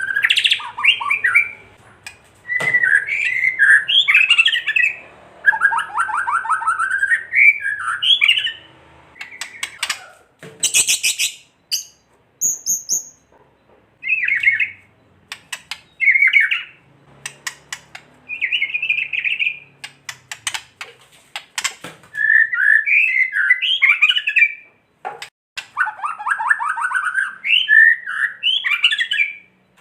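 White-rumped shama (murai batu) giving short bursts of rapid, harsh rattling and chattering phrases, with brief pauses between them and some sharp ticks near the middle. This agitated 'kretekan' rattle is the worked-up call used to provoke other shamas into singing.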